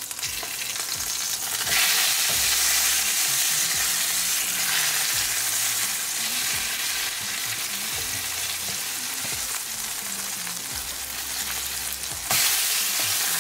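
Chicken chapli kebab patties sizzling in shallow oil in a nonstick frying pan as they are turned over with a spatula. The sizzle grows louder about two seconds in and again near the end.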